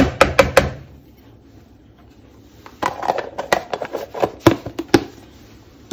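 A spoon tapping a few times against a plastic bowl, then a plastic tub and its lid clicking and scraping for about two seconds as it is handled.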